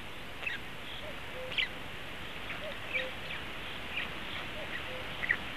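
Forest birdsong: scattered short, high chirps from small wild birds, with faint short low notes recurring every second or so, over a steady background hiss. The loudest chirp comes near the end.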